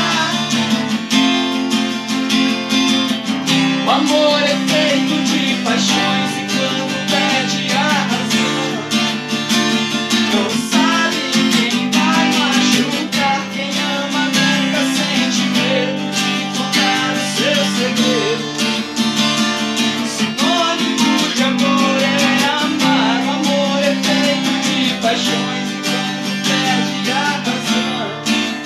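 Acoustic guitar strummed steadily, with a duo singing a sertanejo ballad over it.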